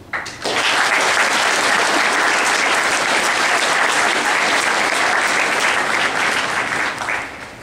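Audience applauding: many hands clapping together, starting suddenly about half a second in, holding steady and dying away near the end.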